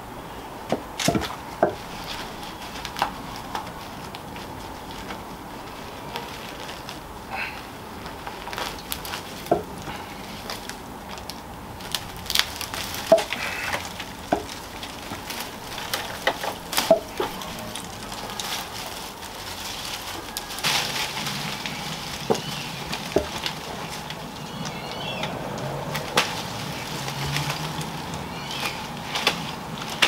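Ivy stems cracking and snapping, with leaves rustling, as an overgrown ivy climber is pulled off a wall by hand; sharp irregular snaps every second or so.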